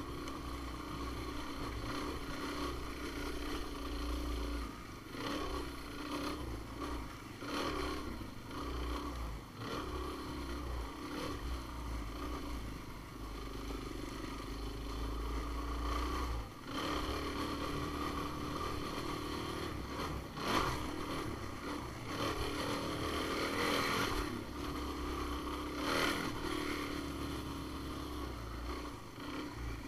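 Off-road vehicle engine running while climbing a trail, its pitch and level rising and falling with the throttle and dipping briefly a few times where the throttle is eased off.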